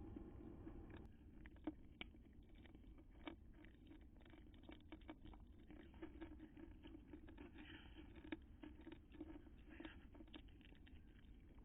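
Near silence, with faint irregular clicks and ticks over a low steady hum.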